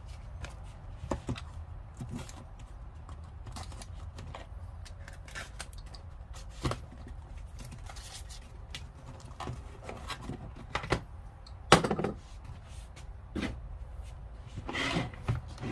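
Tools and packaging being handled: scattered light clicks, rustles and knocks, with one sharper knock about two-thirds of the way through, over a steady low hum.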